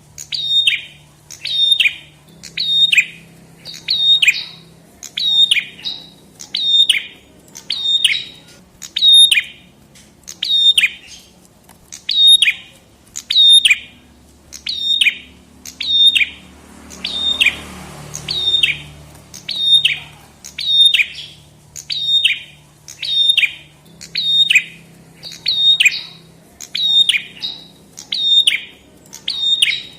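Prenjak kepala merah calling: a sharp, falling chip repeated a little more than once a second in a steady rhythm. A brief hiss rises and fades about halfway through.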